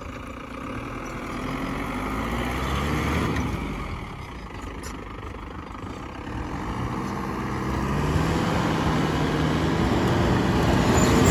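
Engine of a cut-down Tata SUV pickup revving as it circles on loose sandy dirt. The revs climb in the first few seconds, ease off around four seconds in, then climb again and grow louder toward the end as the truck comes close.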